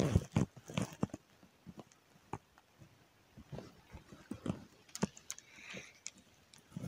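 Scattered light clicks and taps of hands handling a spinning rod and reel, with a brief soft rustle near the end.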